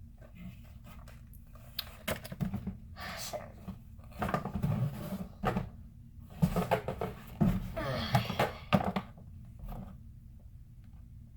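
Toy packaging being handled: irregular rustling of plastic and cardboard with a few sharp knocks, busiest in the middle of the stretch.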